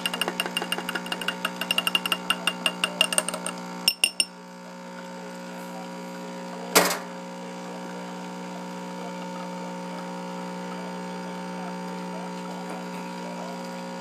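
Nespresso capsule machine's pump humming steadily as coffee runs into a glass cup. For the first four seconds a spoon clinks rapidly against the glass while stirring, ending in a few sharp taps, and one sharp click comes about seven seconds in.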